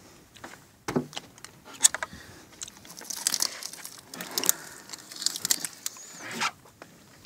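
Hands rummaging through fish in a white fish box: rustling and scraping with many sharp knocks and clicks as the catch is shifted and a large dentex is lifted out.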